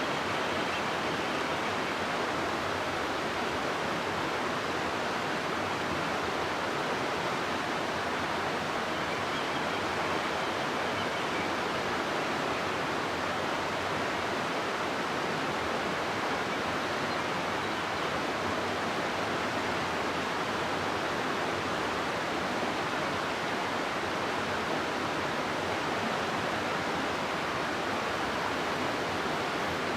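River water rushing steadily through a rocky gorge, an even, unbroken rush with no let-up.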